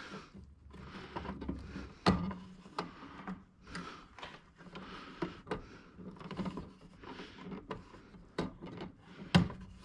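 Handling of an Ethernet cable at a network box: irregular small plastic clicks and knocks with rustling as an RJ45 plug is pushed back into its jack, the sharpest knocks about two seconds in and near the end.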